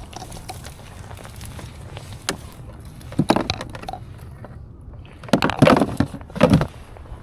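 Footsteps wading through shallow water and soft mud: a couple of sloshing steps about three seconds in, then a louder run of splashy steps in the second half, over a steady low rumble of wind on the microphone.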